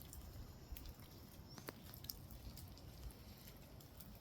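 Near silence with a few faint, scattered drips and ticks, typical of light rain dripping near a shelter.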